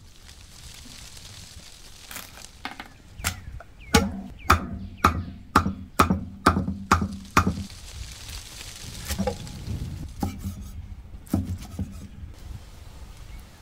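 Steel cleaver chopping squid on a thick round wooden chopping block: a quick run of about eight sharp chops, roughly two a second, starting about four seconds in, with a few single chops before and after.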